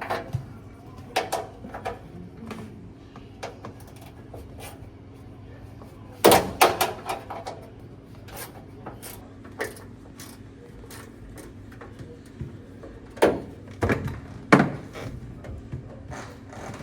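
Sharp metal clinks and knocks from a small wrench working the set screws on a furnace blower wheel's hub. There is a cluster about six seconds in and a few more near the end, with a faint steady hum underneath.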